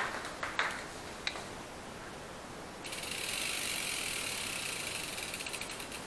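Sagmit M120 rear hub's freehub ratcheting as the wheel spins: a few separate clicks at first, then about three seconds in a loud, continuous high-pitched buzz of pawl clicks too fast to count. The clicks come apart into separate ticks just before it stops. The freehub body has just been cleaned and reassembled after two years of neglect.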